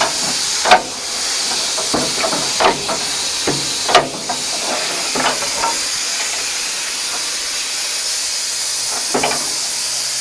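Compressed air hissing steadily from the truck's air system, with several sharp metallic knocks scattered through it, the loudest near the start and about four seconds in.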